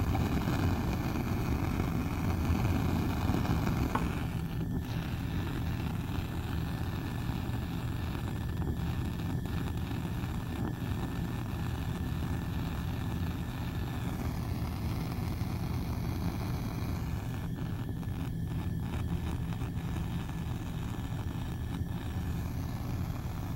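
Bunsen burner gas flame burning steadily with a low rushing noise, a little louder for the first few seconds.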